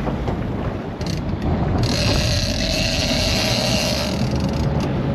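Fishing reel's ratchet drag clicking and buzzing as a big fish pulls line, over a low steady rumble. It grows much louder about two seconds in and eases off about a second before the end.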